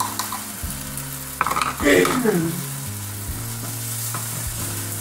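Broccoli, cauliflower and other vegetables sizzling in a hot skillet as they are stirred with a wooden spatula.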